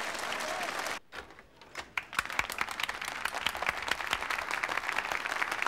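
A large audience applauding. The applause drops away for about a second near the start, then comes back as dense clapping.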